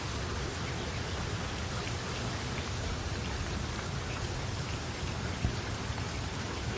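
Steady rain falling, an even hiss with scattered drops ticking on a surface, and one louder single tap about five seconds in.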